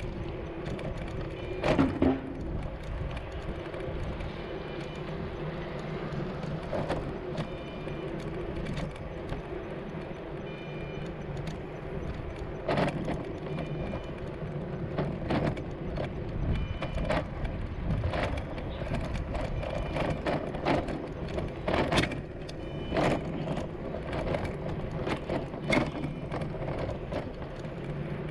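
Urban street ambience: a steady low hum with irregular knocks and clicks, a stronger knock about two seconds in.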